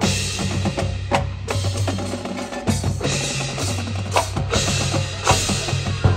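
Marching band percussion playing a loud drum passage, snare and bass drums with sharp accented hits over a low held bass note, while the horns drop out.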